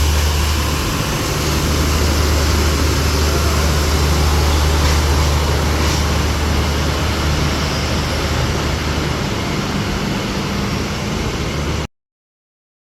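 A steady low drone from the Subuk Raftaar railcar's engine under an even hiss of heavy rain. The sound cuts off suddenly near the end.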